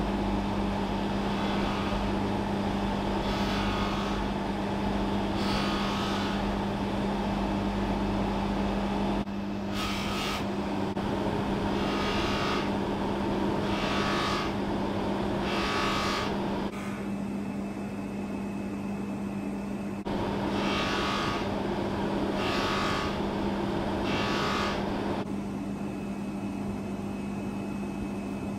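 Bench polishing motor running steadily with a soft buffing mop, polishing an acrylic (plexi) watch crystal to remove scratches. A hissing brush sound swells about every two seconds as the crystal is worked against the mop.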